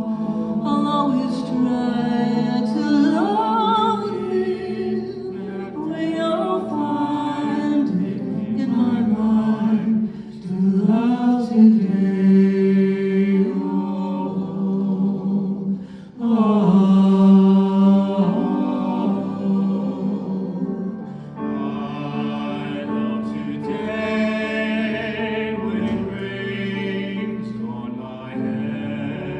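Voices singing together in a slow song over a steady low held note, with short breaths between phrases about ten and sixteen seconds in.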